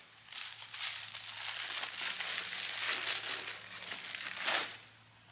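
Tissue paper and a plastic mailer bag rustling and crinkling as they are handled and pulled out of a cardboard box, with a louder crinkle near the end.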